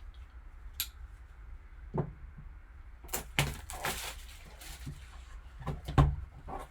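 A trading-card box and its packaging being handled and opened by hand: scattered knocks and taps, with a stretch of crinkly rustling about three seconds in.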